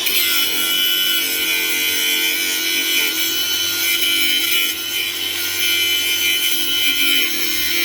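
Angle grinder cutting steadily through metal, slicing off a seized, corroded front drop link on a Renault Clio's suspension.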